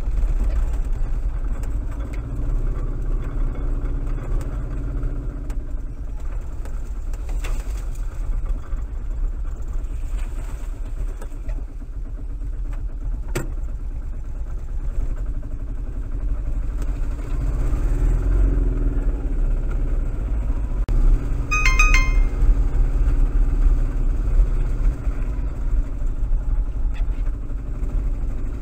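Small utility vehicle's engine running at low speed while it manoeuvres, heard from the camera fitted on board; the engine note rises for a couple of seconds past the middle. A few sharp knocks come through, and a quick run of short high beeps sounds about three-quarters of the way in.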